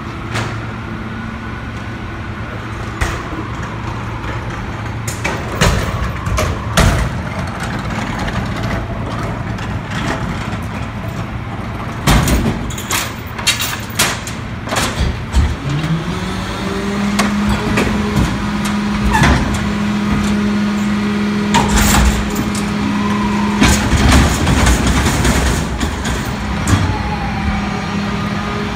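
Mack MRU refuse truck with a McNeilus rear-loader body idling while a steel dumpster is rolled up and hooked to it, with scattered clanks. About halfway through, the engine speeds up and holds a higher idle as the hydraulics lift the dumpster. Loud metal bangs follow as the dumpster is tipped and banged out over the hopper.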